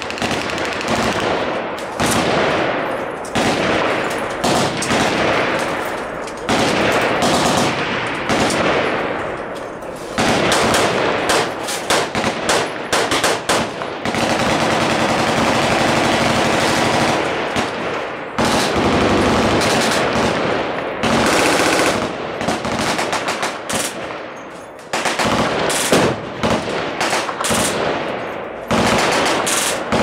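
Many machine guns on a firing line shooting at once: overlapping bursts and long strings of automatic fire, almost without a break, with a brief lull a little before the end.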